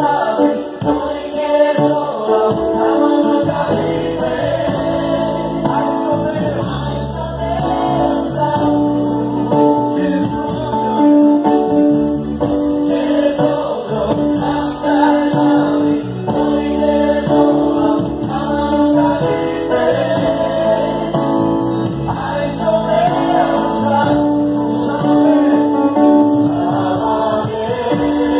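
Live gospel worship music: several singers at microphones, backed by electric guitar and keyboard, sing a song with a steady beat through the hall's sound system.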